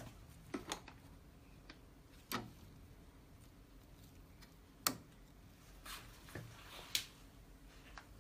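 Scattered small clicks and taps of a screwdriver and gloved fingers on a printhead and its plastic carriage as the head is seated and screwed down, about seven in all, the sharpest about halfway through.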